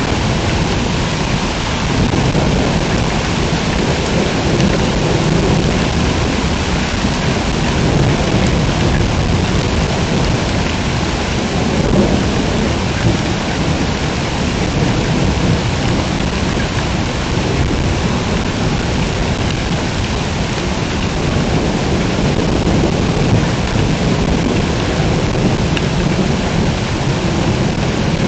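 Heavy rain pouring steadily during a thunderstorm, with low rumbling thunder underneath.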